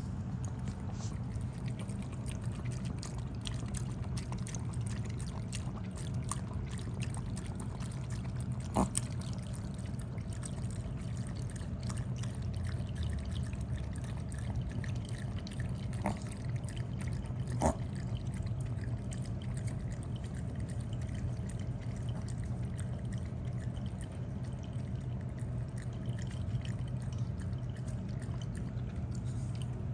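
Petempo electric pet water fountain running: water trickling steadily over a low, even hum, with a few faint clicks.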